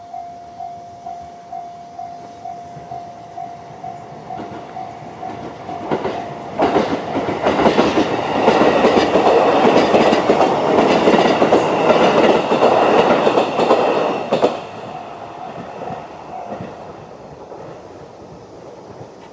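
Japanese level-crossing electronic warning bell, JR East Tohoku-type tone, dinging at about three dings every two seconds. From about six seconds in, a JR E531-series electric train passes loudly for some eight seconds, its wheels clattering over the rail joints and drowning out the bell. The bell stops a couple of seconds after the train has gone.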